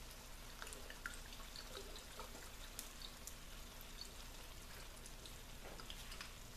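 Faint sizzling with small scattered pops from steak, bell peppers and onions cooking in a cast-iron Dutch oven, as Worcestershire sauce is poured in.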